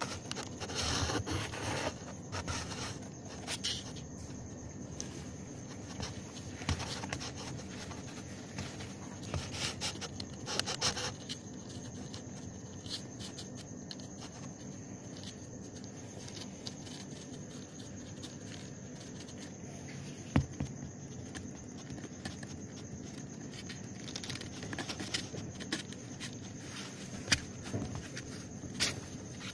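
Rustling and scraping against a cardboard box, with scattered light clicks and louder bursts of rustling about a second in and again around ten seconds in, over a steady low hiss.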